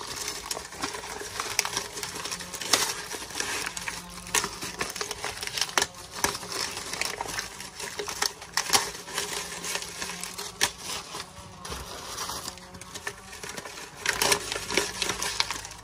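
Dry corn husks crackling and rustling as they are pulled apart and unfolded by hand, with irregular sharp crinkles.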